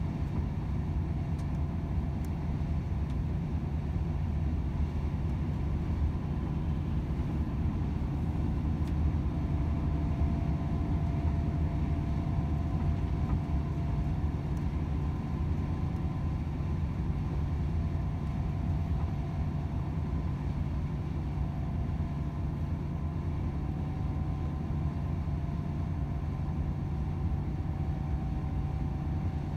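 Volvo FH 500 truck's 13-litre straight-six diesel running steadily at cruising speed, with road and tyre drone.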